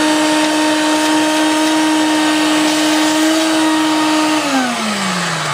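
Shop vacuum running, sucking up dirt and loose rust, with a steady motor whine over a rush of air. It is switched off about four and a half seconds in, and its motor winds down, the whine falling in pitch.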